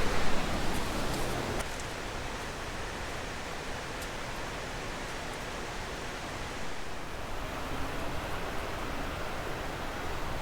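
Steady rushing noise of water flowing through the gorge below the dam, which is releasing water, with a few faint clicks over it.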